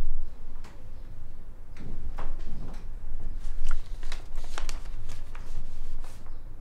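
Sheets of paper and a plastic folder being handled: a string of short rustles, scrapes and clicks, over a steady low hum.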